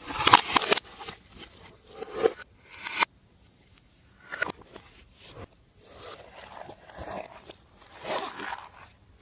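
Glossy slime being squished and stretched by hand, giving a string of irregular sticky crackles and squelches, loudest at the very start with sharp ones about two and three seconds in.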